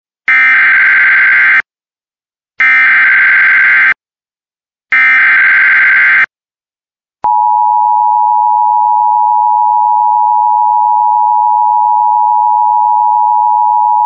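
Emergency Alert System SAME header: three identical bursts of digital data screech, each about a second and a half long with short gaps between them. About seven seconds in, the long steady attention tone begins, signalling that an emergency alert message follows.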